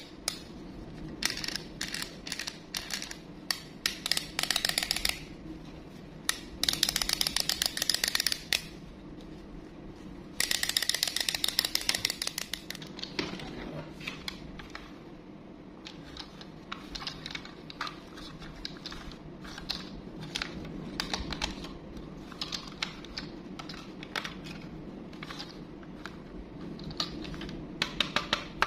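Plastic toys clicking and rattling as they are handled and moved about in a cardboard box. There are three stretches of rapid ticking, each lasting a second or two.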